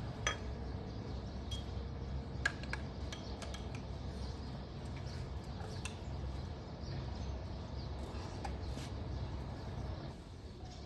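Scattered metallic clinks and clicks of hand tools against engine parts, with the sharpest about a quarter second in and another about two and a half seconds in, over a steady low hum.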